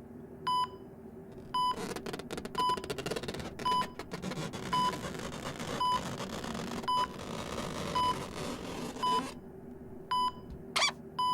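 Censor bleeps: a string of short, single-pitch beeps about once a second, cutting out profanity, over a low muffled noise from about two to nine seconds in.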